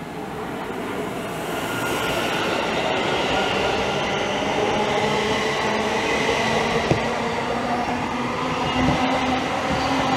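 Siemens Class 700 electric multiple unit pulling away from the platform, its traction motors whining in several tones that climb slowly in pitch as it gathers speed. The sound grows louder about two seconds in.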